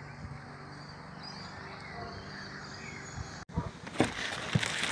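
Faint outdoor ambience, with a few faint chirps over a low steady hum. About three and a half seconds in it cuts to close rustling and knocks of a phone being handled against cloth.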